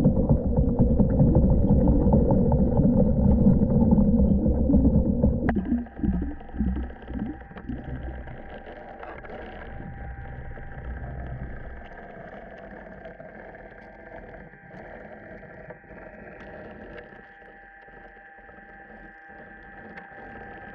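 Pool vacuum and pump running with a loud, steady low rumble. About five seconds in it changes abruptly to a much quieter, muffled hum with a steady high whine, with a few seconds of gurgling right after the change.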